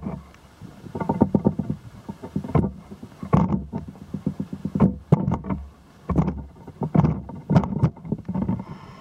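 Footsteps on a roof: a series of hollow thumps, roughly one a second, with short pauses between.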